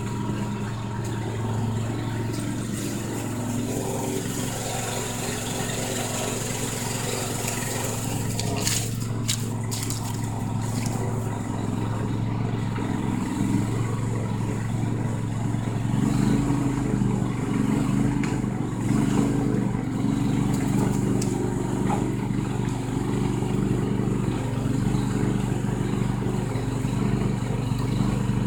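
Snowblower engine running steadily. About halfway through its sound changes, turning deeper and a little louder.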